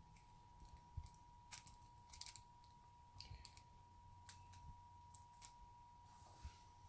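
Faint, scattered clicks and scratches of a cardboard box of Spanish playing cards being handled in the fingers and passed from hand to hand, over a faint steady tone.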